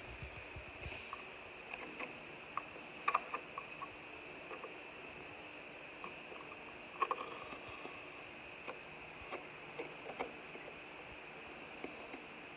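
Scattered small clicks, taps and scrapes of a scribing compass, its steel point and pencil being run along a textured wall, over a steady faint hiss. The loudest clicks come about three seconds and about seven seconds in.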